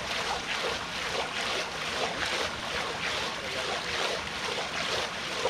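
A hooked barramundi thrashing at the water's surface right beside a dock, making repeated splashes about twice a second.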